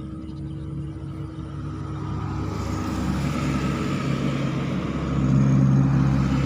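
A motor vehicle's engine approaching and getting steadily louder.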